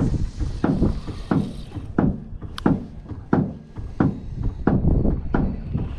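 Small waves slapping against a boat hull in a quick, uneven run of dull knocks, two or three a second. Wind hisses on the microphone, strongest in the first couple of seconds.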